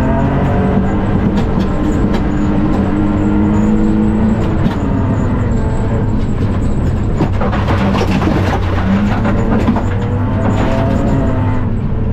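Onboard a BMW E46 rally car at speed on gravel: the engine note climbs, falls away about four and a half seconds in, then climbs again near the end. In between, a rougher stretch of gravel and stones rattling against the car mixes with the engine and tyre noise.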